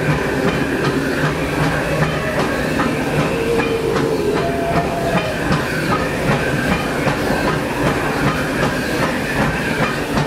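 Steam locomotive of the Disneyland Railroad running along the track, heard from inside its cab: a steady, loud rumble and clatter of wheels and machinery with frequent clicks and some hiss.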